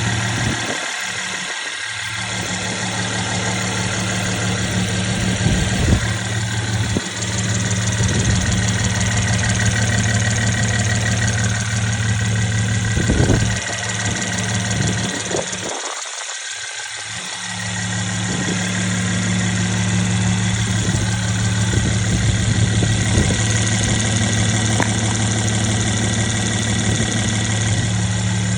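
Petrol V6 engine of a Mercedes-Benz W218 CLS 350 idling steadily, with a squeak whose cause the owner does not know and is asking about.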